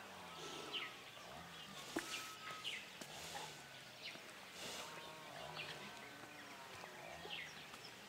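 Quiet rural outdoor ambience with small birds chirping: short high chirps every second or so over a faint low hum.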